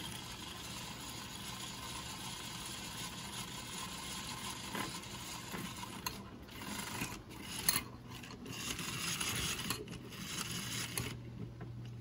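Coconut cream being whipped by hand in a bowl: a steady, fast scraping of the beater against the bowl, broken by a few brief pauses in the second half.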